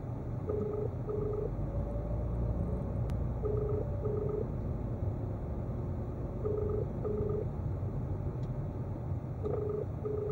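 Telephone ringing tone in a double-ring cadence, a pair of short beeps repeating about every three seconds, four times, over the low rumble of a slow-moving car.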